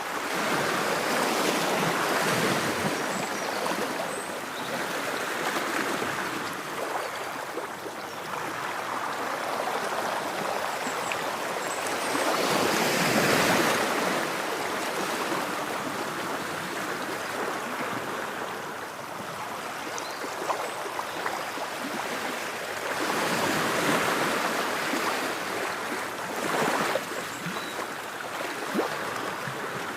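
Ocean waves breaking and washing onto a shore: a continuous rush of surf that swells and ebbs every few seconds, loudest near the middle and again later on.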